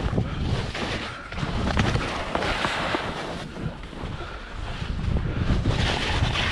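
Skis hissing through fresh powder while skiing fast through trees, the hiss swelling and fading every second or two, over wind buffeting the action camera's microphone.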